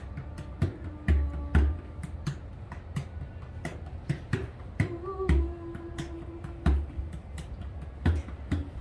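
Bodhrán frame drum beaten with a wooden tipper in a quick, uneven rhythm of sharp skin-and-rim hits, with a few deeper open-skin thumps. A woman's voice holds a few long sung notes over the drum, the longest near the middle.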